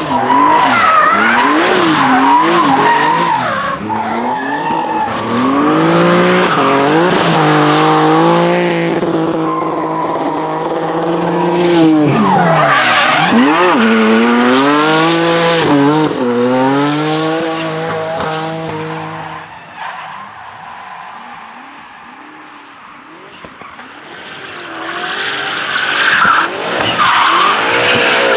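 Drift cars sliding sideways, their engines revving hard over squealing tyres, the engine note dipping and climbing as the throttle is lifted and reapplied. About two-thirds through, the sound drops to a distant hum for a few seconds, then another car's engine and tyres come back up loud.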